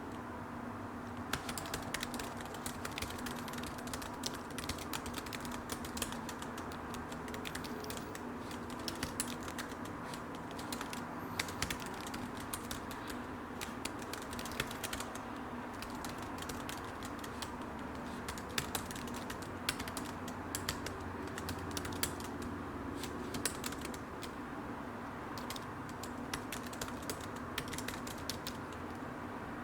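Typing on a computer keyboard: quick, irregular key clicks in runs, starting about a second in, over a steady faint hum.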